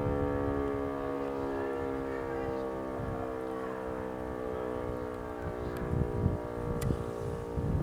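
E57 electromechanical motor siren sounding a steady tone with many overtones, during a test of the 'Feueralarm' fire-brigade signal. A low rumble of wind noise lies underneath.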